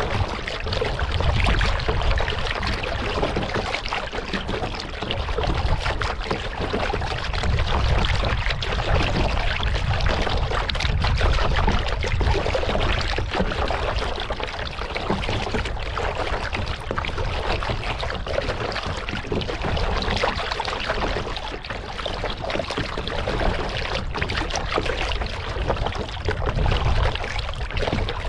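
Water splashing, trickling and lapping around a kayak being paddled on a lake, continuous and fairly loud, over a steady low rumble.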